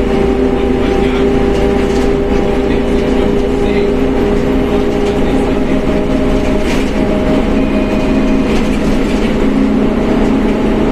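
Mercedes-Benz OF1721 BlueTec 5 bus driving, its differential giving a steady gear whine of several held tones over the engine and road noise.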